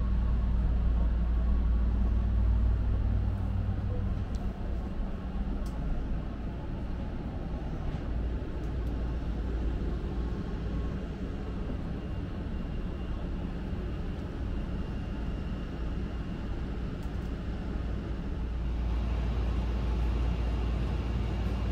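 Steady low vehicle rumble, heavier in the first few seconds and again near the end, with a faint thin high whine in the second half.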